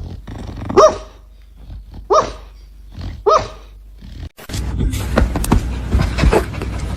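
A dog giving three short, pitched barks about a second apart. From about four seconds in a steady, noisy rumble with clattering takes over.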